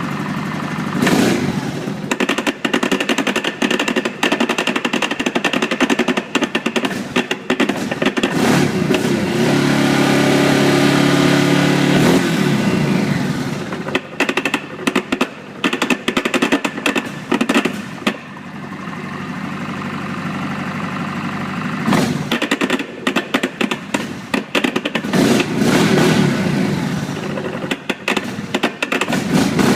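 Yamaha Grizzly 700 ATV's single-cylinder engine running with a rapid, irregular knocking rattle, a noise the owner calls bad. The rattle comes and goes: the engine runs smoother under a steady rev about ten seconds in and quieter around twenty seconds, then the knocking returns.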